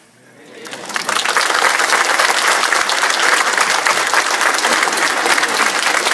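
Congregation applauding: the clapping swells up within the first second and then continues steadily.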